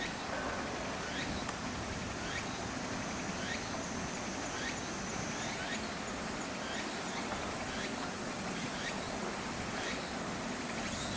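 Insects calling outdoors: a regular pulse of short high chirps about every 0.8 s, over a steady thin high buzz that shifts higher about halfway through. Underneath runs a low steady background hum.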